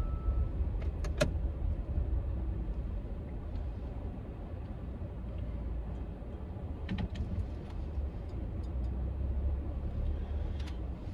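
Steady low rumble of a running car heard from inside the cabin, with a few light clicks and knocks about a second in, around the middle and near the end.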